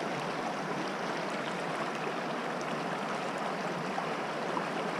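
Small, shallow creek running over stones: a steady rush of water.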